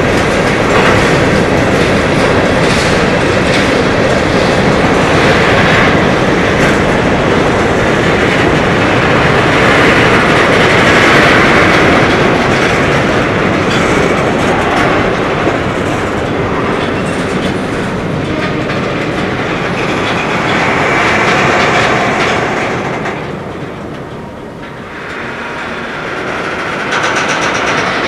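Freight train of covered hopper cars rolling past close by: steel wheels clicking over the rail joints over a continuous rumble. It grows briefly quieter about three quarters of the way through, then builds again.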